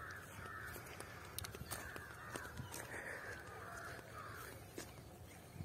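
Faint cawing of crows: a string of short calls coming every half second or so.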